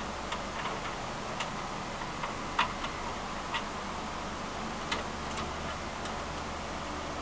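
Faint, irregular small metal clicks and taps, about eight of them, from a screw and screwdriver being handled against a computer case's card bracket, over a steady low hum.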